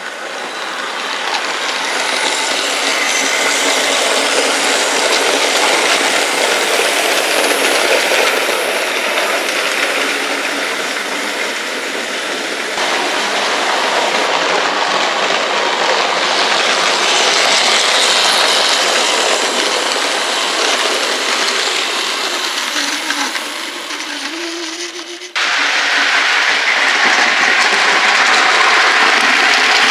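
OO gauge model train running along the track: a steady rattling whir of wheels and motor on the rails, changing abruptly about 25 seconds in.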